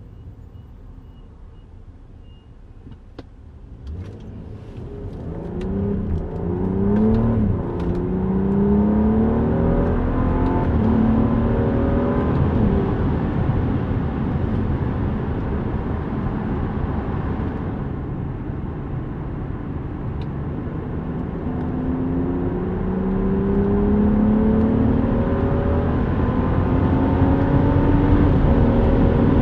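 BMW 640i's turbocharged straight-six engine heard from inside the cabin, quiet at first, then accelerating hard: its pitch climbs repeatedly through gear changes, eases off around the middle, then climbs again near the end. This is a hard-acceleration test drive after a new high-pressure fuel pump went in to cure stumbling and limp mode.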